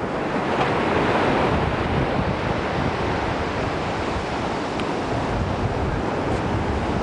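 Wind buffeting the camera microphone on an open beach: a steady, loud rushing noise with a low fluttering rumble.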